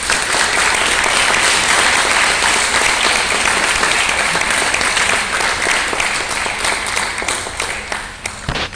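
Audience applauding: dense clapping that starts all at once, holds steady, and begins to die down near the end.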